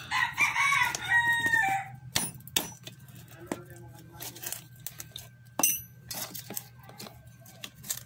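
A rooster crows once, a call of about two seconds that drops in pitch at the end. It is followed by scattered light metallic clicks and knocks from the washing machine motor's end bell and shaft being handled.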